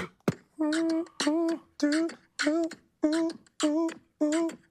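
Beatboxing into a phone looping app: two sharp mouth clicks, then a short hummed vocal note that slides up slightly at its start, repeated in a steady rhythm a little under twice a second.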